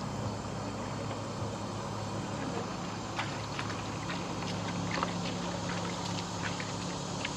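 Steady low drone of a distant engine, with short faint high ticks or chirps scattered through it.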